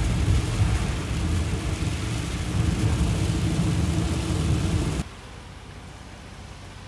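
Motorhome driving on a wet road in falling sleet: a steady low rumble of engine and tyres under road and cabin hiss. About five seconds in, the sound cuts suddenly to a much quieter steady hiss.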